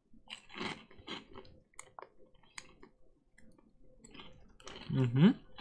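Mouth-close chewing of a crunchy corn-and-potato snack: scattered small crunches and clicks. About five seconds in, a short rising 'mm' is hummed through the mouthful.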